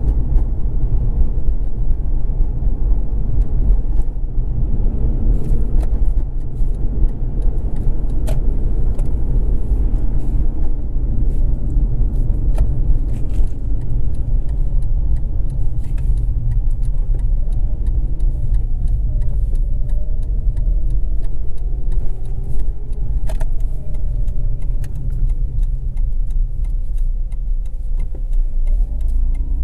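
Mazda RX-8 with its twin-rotor rotary engine driving on city streets: a steady low rumble of engine and road noise, with a few light clicks. Past the middle, the engine note dips and then climbs again.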